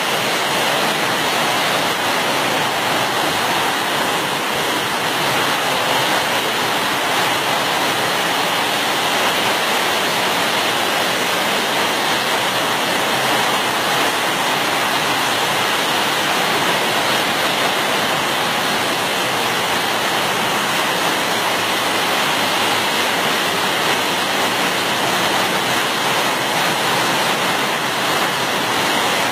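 Rainwater rushing down a long flight of steps in a steady, loud torrent.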